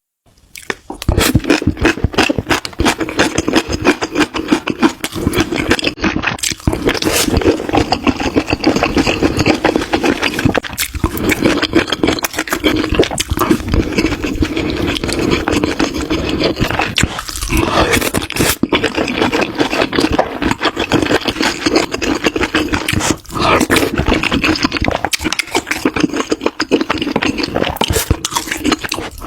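Close-miked eating sounds: chewing with a dense run of crunchy, wet clicks that goes on without a break from about a second in.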